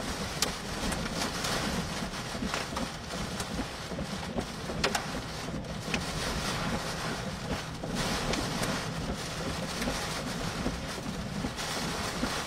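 Heavy rain and strong tornado-driven wind, about 80 mph, lashing a vehicle whose glass has been broken, with wind buffeting the microphone. A few sharp ticks of things striking the vehicle come through the steady noise.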